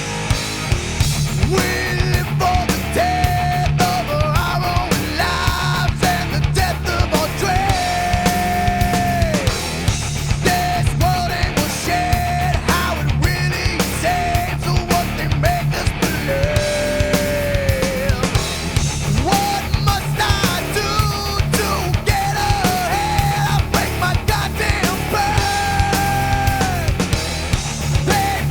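Nu metal song with distorted electric guitars, bass and drums at a steady beat, under a high held melody line whose notes bend downward as they end.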